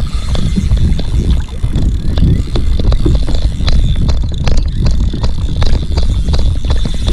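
Wind buffeting the microphone on a fishing kayak at sea, with water splashing and slapping against the hull in many short, sharp hits. A thin, steady high whine runs underneath.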